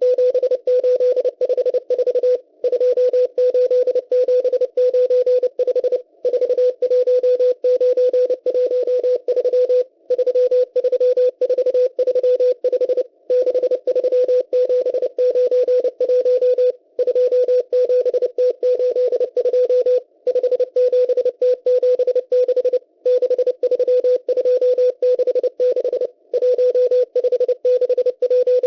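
Morse code from the M12 Russian number station received on shortwave: a single steady beep tone keyed in fast dots and dashes, sending groups of numbers with a short break every three to four seconds between groups.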